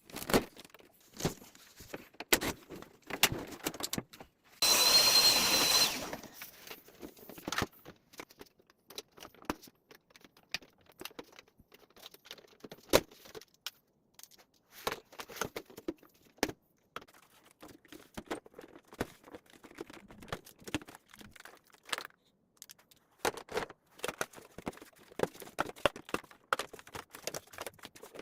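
Scattered clicks, taps and rattles of parts and screws being handled while a stand air conditioner is taken apart. About five seconds in there is a brief whir of a power tool, most likely a screwdriver.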